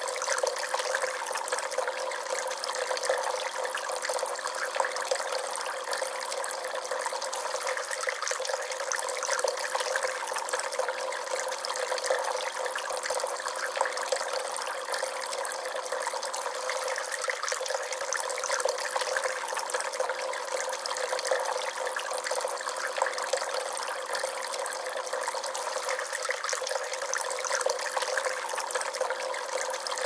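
Water from a tiered polyresin jug-and-pot garden fountain falling in a thin stream from a tipped jug into the pot below: a steady trickle and splash.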